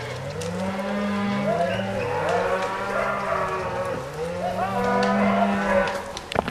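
A herd of cattle lowing, many cows mooing at once in long, overlapping calls.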